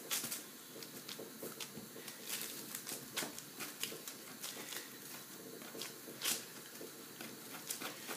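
Fingertips pressing and patting soft cocoa biscuit dough into a log on baking paper: faint, irregular taps with rustles of the paper, a couple of them louder.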